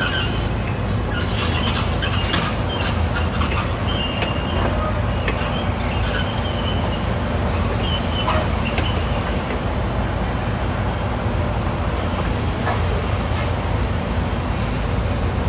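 Excavator's diesel engine running steadily with a low rumble, with short high metallic squeaks coming and going in the first half.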